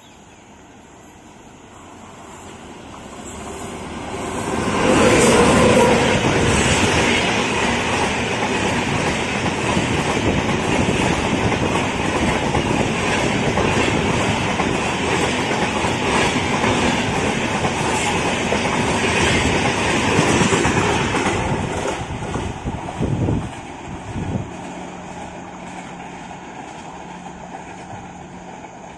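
Tejas Express, an electric-locomotive-hauled passenger train, passing through at speed. The rumble of wheels on rails grows over the first five seconds as the locomotive approaches, then holds as a loud steady rush with wheel clatter while the coaches pass. It fades from a little over twenty seconds in as the last coach moves away.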